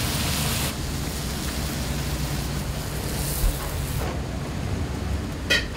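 Commercial wok cooking: a hissing sizzle at first, then a steady rushing hum of a wok burner and kitchen extraction, with a small knock partway and a short high clink near the end.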